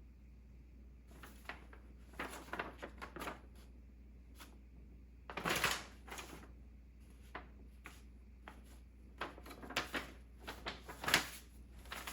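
Irregular clicks, knocks and rattles of hands handling computer parts while a PC is being assembled, loudest about five and a half seconds in and again about eleven seconds in.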